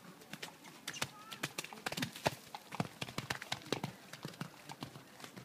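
Hoofbeats of a ridden horse cantering on a wet sand arena, a run of dull thuds that is loudest about two seconds in.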